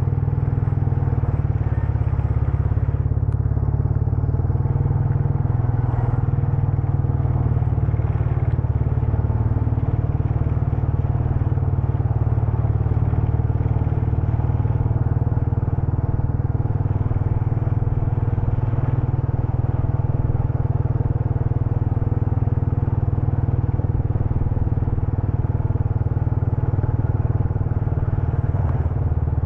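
Motorcycle engine running steadily while riding, a constant low hum with no change in speed.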